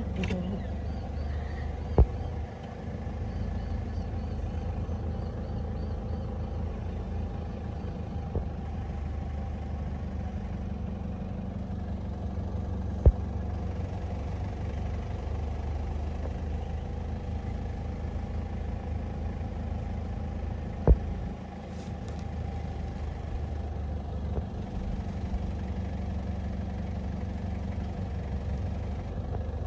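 A motor idling with a steady, unchanging hum. Three sharp knocks about two seconds, thirteen seconds and twenty-one seconds in are the loudest sounds.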